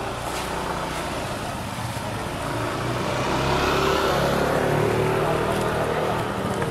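Motor scooter engine running as it rolls out close past the microphone, growing louder to a peak a little past the middle, then easing off.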